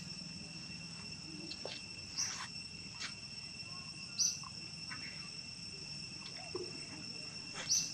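Steady high-pitched insect drone held on a few fixed pitches. Short high chirps come about every two seconds and are the loudest sounds, over a faint low hum.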